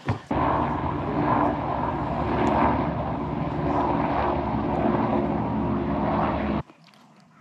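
Loud, steady engine drone with a low hum at an unchanging pitch. It starts suddenly just after the beginning and cuts off abruptly near the end.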